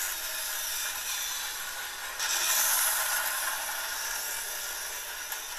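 Battery-powered Pequetren toy train running on its plastic plateway track, giving a steady whirring hiss. The hiss grows louder for about a second from around two seconds in.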